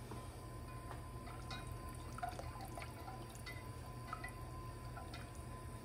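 Silicone-coated whisk stirring a thickening milk-and-flour white sauce in an enameled cast-iron pot: soft wet sloshing with light, scattered ticks. A steady low hum runs underneath.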